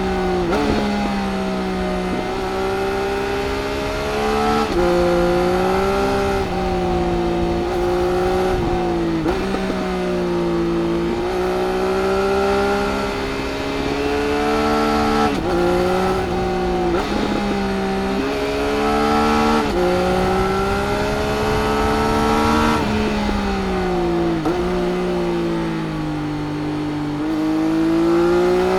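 2018 Triumph Speed Triple RS's inline three-cylinder engine through its Arrow exhaust, ridden hard. The engine note repeatedly climbs in pitch and then breaks off abruptly at gear changes, over steady wind rush.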